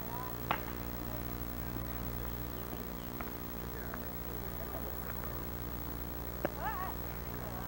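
Two sharp smacks of a baseball landing in a leather glove during a game of catch, about six seconds apart, over a steady low hum from the camcorder recording.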